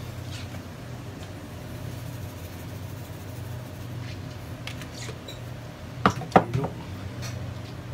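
A steady low hum with a few faint ticks, and a quick run of sharp knocks about six seconds in, the loudest sound here.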